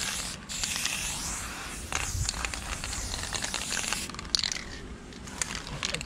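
Aerosol spray-paint can hissing as paint goes onto a concrete wall, stopping briefly about four seconds in, then a sharp click and the hiss picks up again.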